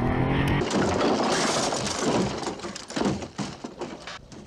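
Wind rushing on the microphone, cut off under a second in, then a car crashing and breaking as it tumbles down a hillside: a run of crunching impacts that grow sparser and fainter.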